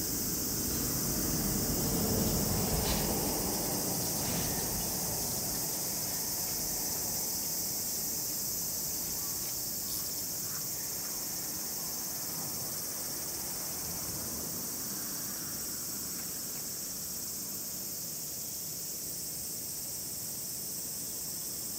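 Steady, high-pitched chorus of insects, one unbroken shrill hiss. About two seconds in, a low rumble of wind or handling on the microphone briefly rises under it.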